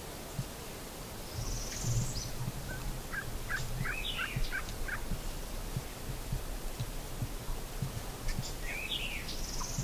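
Birds calling in spring woods: a wild turkey and songbirds, with a high buzzy trill twice and runs of short chirps.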